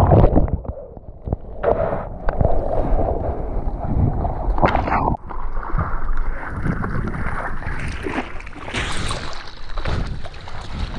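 Seawater sloshing and splashing around an action camera at water level on a surfboard while the surfer paddles, with wind buffeting the microphone. Shortly after the start the sound goes muffled for a second or so as the camera dips under the water, then a few sharp splashes follow before a steady wash of water and wind with repeated paddling surges.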